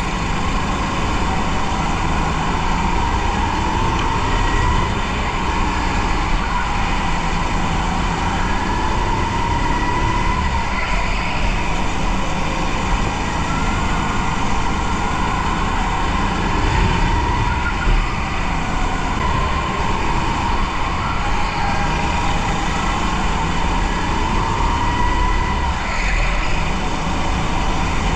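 Onboard sound of a go-kart lapping at race pace: a steady running rumble with a whine that rises and falls as the kart speeds up down the straights and slows for the corners.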